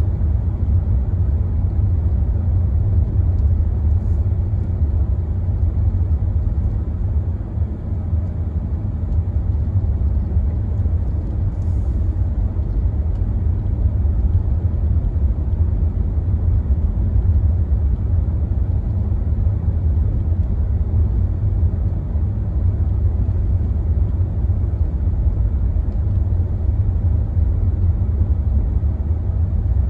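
Steady low rumble of a car heard from inside the cabin while it drives on a snow-covered road: engine and tyre noise.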